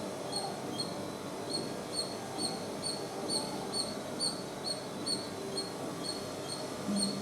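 A squirrel giving a steady run of short, high-pitched chirps, about two a second, over a low steady background noise.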